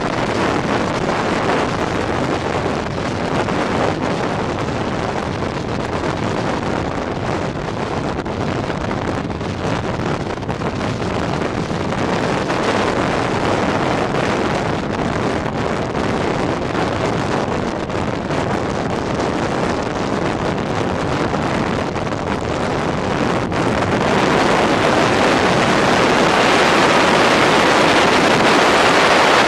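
Wind rushing over the microphone of a motorbike riding at road speed, with road and engine noise blended underneath. About 23 seconds in the rush grows louder and brighter as the bike speeds up.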